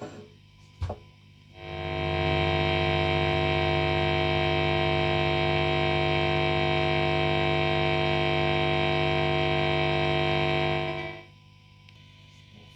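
Steady electrical buzz from an SX Standard Series Stratocaster's single-coil pickups through a guitar amp. It comes up about a second and a half in after a couple of clicks, holds at one level with no decay, and cuts off about eleven seconds in. It is the ordinary hum of single-coil Strat pickups, not a fault.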